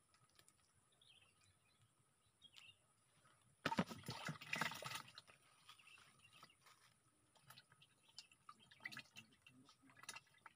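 Quiet outdoor ambience with faint bird chirps. About four seconds in, a burst of rustling and knocking lasts a little over a second as a just-caught fish is handled, with a few lighter clicks near the end.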